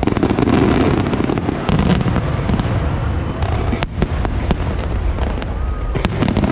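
Japanese star mine fireworks barrage: many shells bursting in quick succession, a dense crackling over continuous low booming, with a few sharper reports about four and six seconds in.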